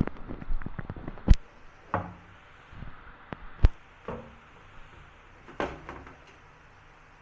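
Handling noises from a front-loading washing machine being taken apart: a quick run of clicks, then irregular sharp knocks of panels and parts being moved, the loudest about a second in and again near the middle.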